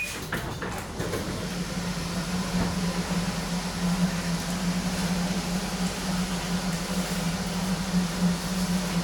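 Metro train standing at a station platform. Its doors slide open with a clatter at the start, then the train's equipment keeps up a steady low hum over a rushing background.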